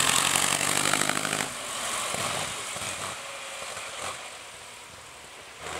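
1918 Piccard-Pictet vintage racing car's engine running hard, loud for the first second and a half, then dropping off sharply and fading away.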